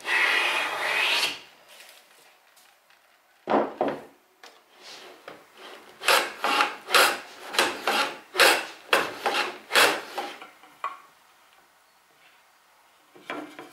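A No. 8 jointer hand plane taking one long shaving along a board's edge at the start. About six seconds in, a hand plane on a shooting board takes a quick run of about nine short strokes, roughly two a second, trimming end grain square.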